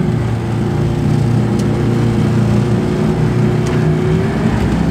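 Suzuki outboard motor on a small aluminium dinghy running steadily under way, its pitch easing slightly near the end.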